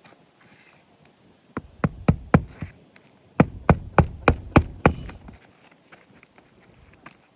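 Hammer driving roofing nails into a shingle: a run of four quick blows about a second and a half in, then six more in a steady rhythm of about three a second.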